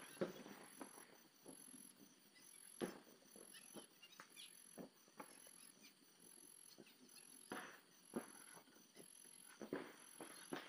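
Crickets calling: a faint, very high chirp repeating evenly about twice a second, with a few scattered faint pops and clicks.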